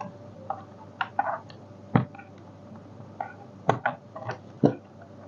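Irregular clicks and light knocks of plastic parts and a tool being handled during the disassembly of a robot vacuum-mop, the sharpest about two seconds in and again about four and a half seconds in.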